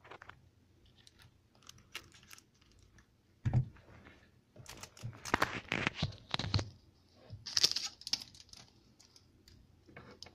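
Hands moving paper and cardboard props on a tabletop: a string of uneven clicks, taps and paper rustles, with a thump about three and a half seconds in and busier handling in the middle.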